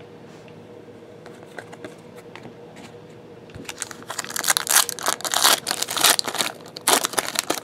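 Foil trading-card pack wrapper crinkling and tearing open in a dense run of crackles, starting about four seconds in after a few faint rustles.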